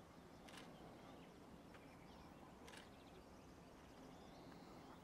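Near-silent outdoor ambience with two faint clicks about two seconds apart, from a camera shutter.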